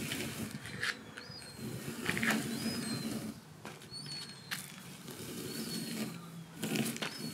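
Plastic leaf rake scratching and swishing through lawn grass in a series of short strokes.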